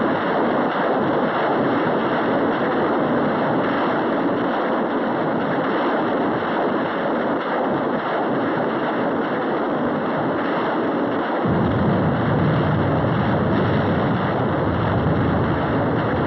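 Truck-mounted rocket launchers firing salvos, a continuous rushing roar with no separate blasts, growing deeper about eleven and a half seconds in.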